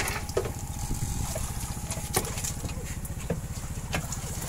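A small engine running steadily with a rapid, even low chugging, and a few light knocks over it.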